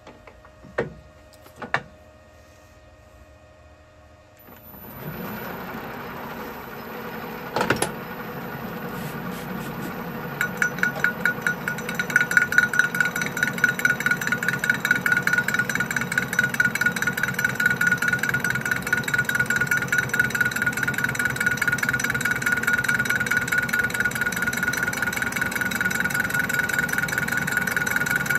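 A couple of knocks, then a Colchester Student lathe starts up about five seconds in and runs steadily. From about ten seconds in, the cutting tool faces a square steel plate held in a four-jaw chuck: an interrupted cut, heard as rapid, regular ticking with a steady ring over it as the tool meets the plate's corners each turn.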